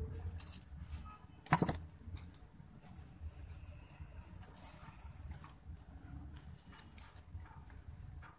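Small clicks and rustles of beads and thin wire being handled and twisted on a table, with one sharper knock about a second and a half in, over a low steady hum.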